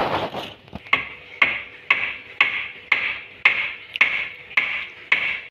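Hand hammer striking, a regular series of sharp blows at about two a second.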